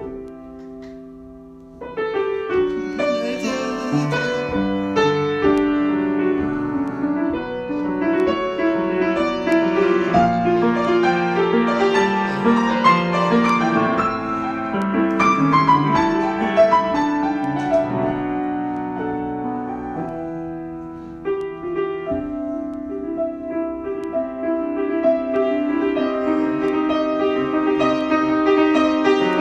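Solo piano improvisation: a chord dies away over the first couple of seconds, then the playing picks up with many overlapping notes and chords ringing and decaying.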